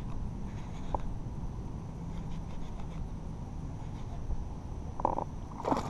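A fishing rod and reel being worked against a hooked bass: faint scratchy clicks over a low steady rumble, with a brief squeak about five seconds in.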